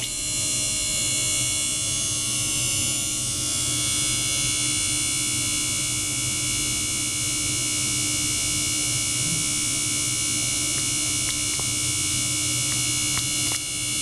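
Small electric circulation pump running steadily: a whirring motor hum with several steady high whining tones over a hiss. A few faint clicks come near the end.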